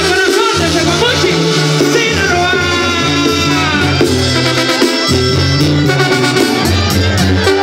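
A Mexican banda sinaloense playing live: a full brass band of trumpets, trombones and clarinets over a tuba bass line that steps from note to note.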